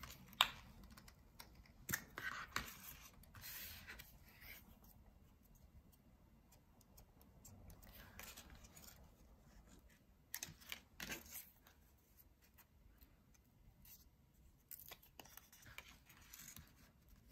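Quiet paper-craft handling sounds: paper cut-outs being picked up and pressed down, and a glue stick uncapped and rubbed onto paper, heard as scattered soft rustles, scrapes and clicks in a few short clusters.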